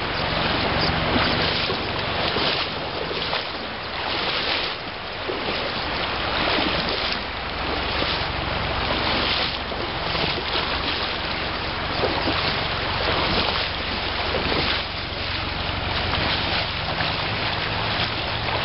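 Steady rush of river current, with wind buffeting the microphone in repeated gusts.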